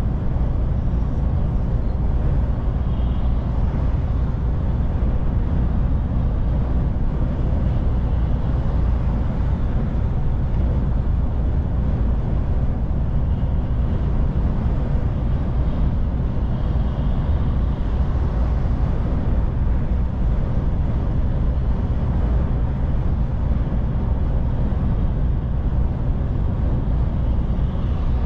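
DAF truck driving at a steady pace: a constant low rumble of engine and road noise with no changes in pitch or load.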